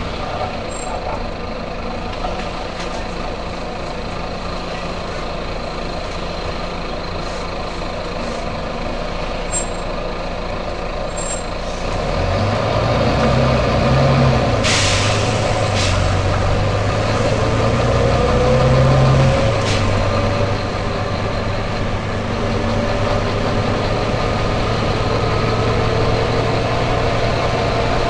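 Volvo B9TL bus's six-cylinder diesel engine idling, then pulling away from about twelve seconds in, louder, with a rising whine as it speeds up. A short burst of compressed-air hiss from the air brakes comes about halfway through.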